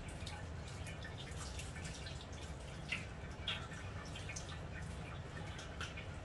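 Thin stream of tap water splashing and dripping onto hands and food being rinsed on a wooden cutting board, with a couple of louder splashes midway, over a low steady hum.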